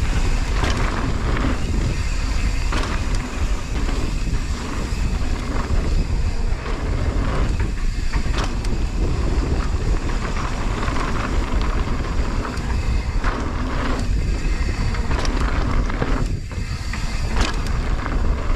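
Wind buffeting the microphone over the rattle and clatter of a mountain bike riding a dirt trail at speed, with frequent short knocks from bumps and landings.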